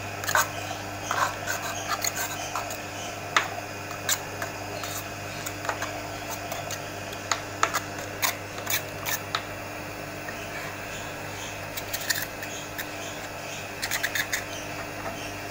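Electric motor of a spice-mixing machine running with a steady low hum, its gear turning in freshly packed solid grease, while a metal spatula scrapes and clicks against the gear housing in irregular strokes.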